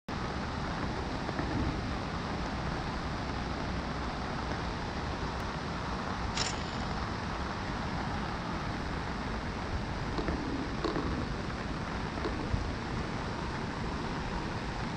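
Steady rushing noise of a swollen, fast-flowing river in heavy rain, with wind on the microphone.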